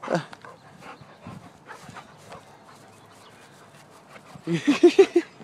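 Chocolate Labrador panting and moving about. Near the end comes a quick run of about six short voiced sounds, the loudest thing here.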